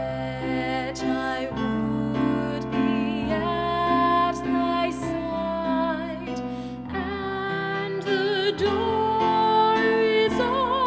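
Solo female voice singing a slow Christmas carol with vibrato on held notes, accompanied by sustained keyboard chords.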